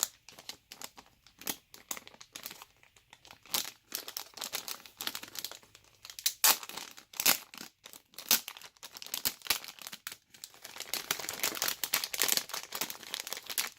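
Plastic packaging crinkling and crackling as it is handled, with dense crackles in the second half.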